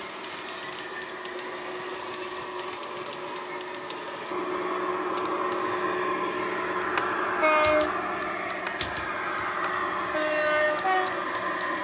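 Sound decoder of a Dapol OO-gauge Class 68 diesel model playing through its speaker: a steady diesel engine sound that steps up in loudness about four seconds in. Two short locomotive horn blasts come about three seconds apart, along with faint clicking of the model's wheels over the rail joints.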